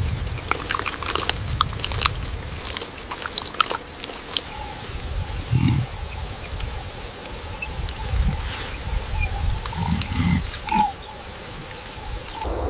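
A large animal grunting a few times with short, low calls, over scattered clicks and a constant high, thin hum that stops just before the end.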